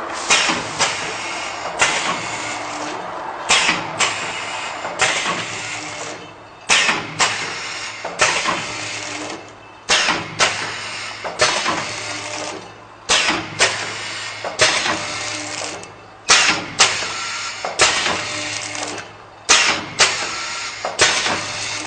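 Form-fill-seal packing machine for liquid paste running its cycle: a sharp clack followed by a hiss about every one and a half seconds, over a steady low machine hum.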